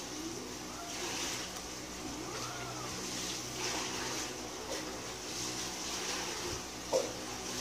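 Steady airy hiss with a low hum, as from a running fan or bench equipment. Over it come faint clicks of small phone parts being handled, and one short sharp sound about seven seconds in.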